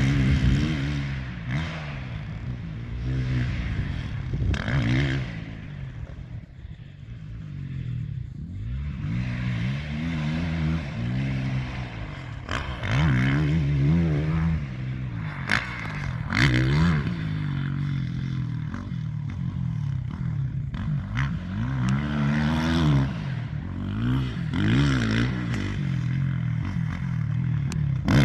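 Small dirt bike engine revving up and dropping back over and over as it is ridden around a motocross track, a burst of throttle every couple of seconds.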